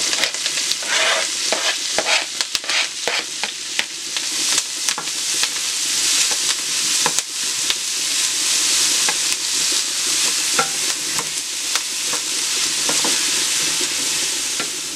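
Freshly added mushrooms and onion sizzling as they fry in a metal pan, stirred with a wooden spoon that scrapes and clicks against the pan many times.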